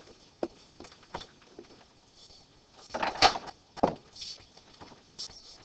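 Light clicks and knocks of a pen stylus tapping and writing on a touchscreen, with a louder cluster of knocks about three seconds in.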